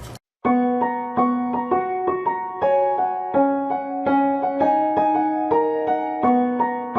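Background music: a gentle solo piano-like keyboard melody of single struck notes, starting about half a second in after a short gap.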